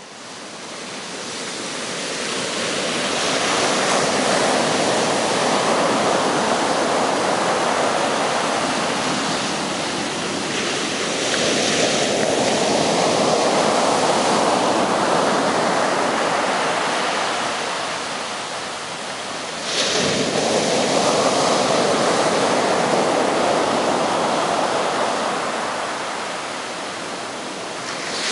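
Small ocean waves breaking and washing up a coarse-sand beach. The surf fades in at the start and then rushes in slow surges lasting several seconds each, with one wave crashing suddenly about two-thirds of the way through.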